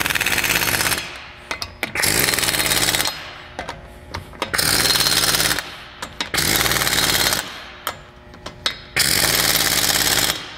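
Impact wrench running lug nuts onto a wheel's studs in five bursts of about a second each. Short gaps between them hold a few clicks as the socket moves from nut to nut. The nuts are run down snug before final tightening with a torque wrench.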